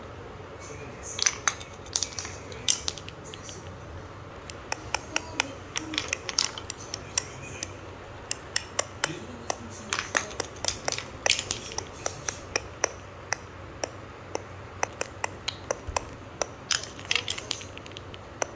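Marbles rolling down a Quadrilla marble run: a long, irregular stream of sharp clicks and clacks as they drop and knock against the track pieces, at times several in quick succession.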